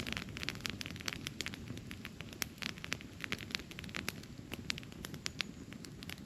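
Wood campfire crackling: a steady run of sharp irregular pops and snaps over a low rumble of burning.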